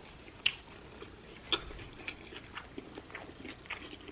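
Close-miked chewing and mouth sounds of someone eating a shrimp taco: soft wet smacks and clicks at an irregular pace, with two sharper smacks about half a second and a second and a half in.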